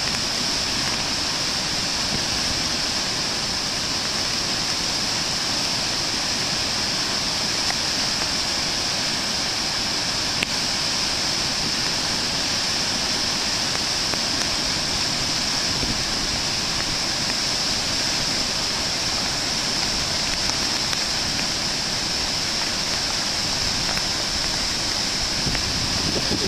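A river in flood pouring over a low dam: a steady, unbroken rush of falling water.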